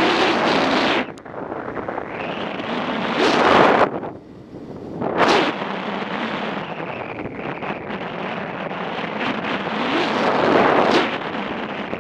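Wind buffeting the microphone of a camera on a moving motorcycle: a steady rush that swells into loud gusts about three and a half, five and eleven seconds in.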